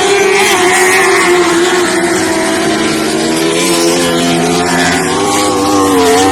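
Several lightning sprint car engines running at racing speed, their overlapping notes rising and falling as the cars go by.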